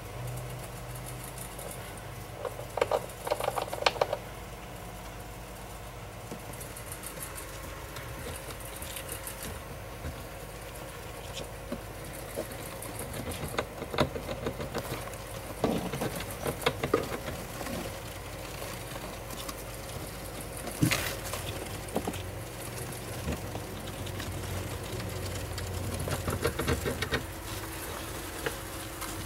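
Rustling and scratching in the wood-shaving bedding of a Shaw's jird enclosure, coming in several short clusters of clicks, over a steady low hum.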